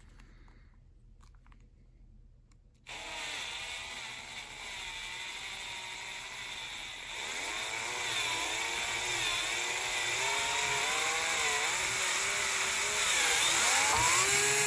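Cordless drill starting about three seconds in and then running steadily, its motor pitch wavering as the bit bores a larger hole through a thin metal bracket. It gets louder toward the end.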